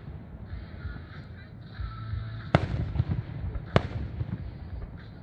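Aerial fireworks shells bursting: two sharp, loud bangs a little more than a second apart, past the middle, over a continuous low rumble of further bursts.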